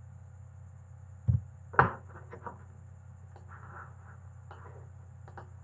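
Two dull knocks close together about a second and a half in, then several faint mouse clicks as text is selected, over a steady low electrical hum.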